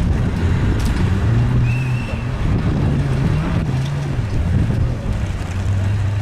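An off-road vehicle's engine working under load, its low note rising and falling in pitch as the throttle is opened and eased, with wind rumbling on the microphone.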